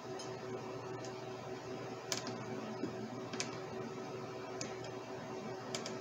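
A few sharp little ticks of a small precision screwdriver and a tiny screw against the metal charging-port bracket as the screw is driven in. The ticks come about once a second, over a steady background hum.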